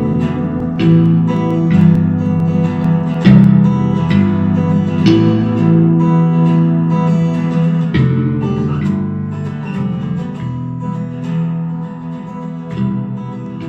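Outro music: a strummed acoustic guitar playing chords at a steady pace.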